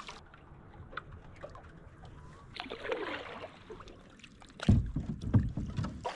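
Kayak paddling: paddle strokes swishing through the water, with faint scattered clicks, then a run of loud low thuds and rumbles near the end.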